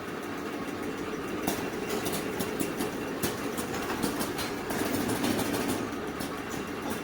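Horizontal flow-wrapping machine for cocktail straws running: a steady mechanical hum with repeated sharp clicks and clacks from its moving parts.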